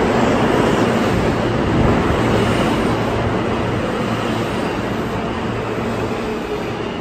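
R160B subway train pulling into an underground station: a loud, steady rumble of wheels on rail with a thin high tone coming in about two and a half seconds in, slowly easing as the train slows along the platform.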